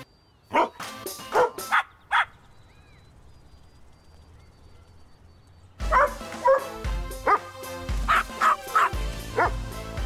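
Dogs barking: four sharp barks in the first two seconds, then a quiet stretch. About six seconds in, music with a heavy low beat starts and more barks sound over it.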